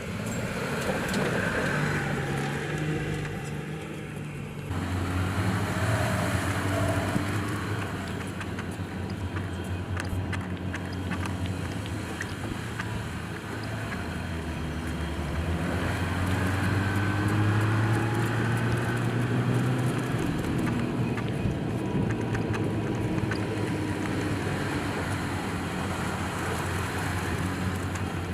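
Jeep Gladiator pickup's engine running while driving, its pitch rising and falling with the throttle, with an abrupt change about five seconds in.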